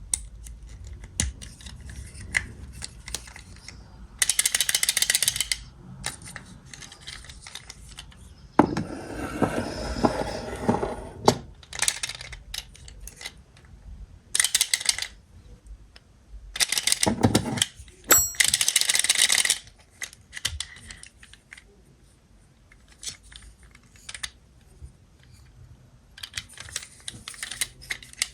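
Hands unwrapping and handling a Kinder Maxi surprise egg and its contents: crinkling wrapper in several bursts, a longer rustle partway through, and many small plastic clicks and taps between them.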